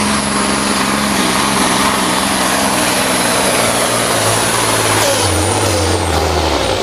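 Diesel engine of a modified Volvo FH pulling truck running at full throttle under heavy load as it drags the weight sled, with a heavy rushing noise over it. Over the last few seconds the engine note sinks lower as the engine is pulled down by the sled.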